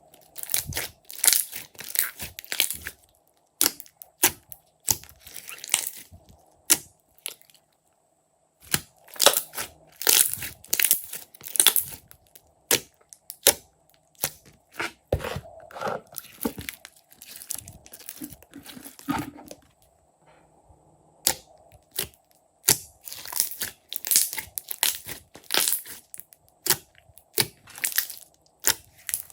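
Slime being squeezed, stretched and poked by hand, giving runs of crackling and popping in bursts, with short pauses about eight seconds in and again about twenty seconds in.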